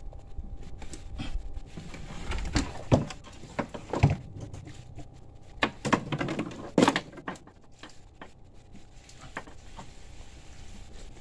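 Irregular knocks and thumps against a wooden boat's deck while a caught spotted scat is held down and unhooked, the loudest about three, four, six and seven seconds in.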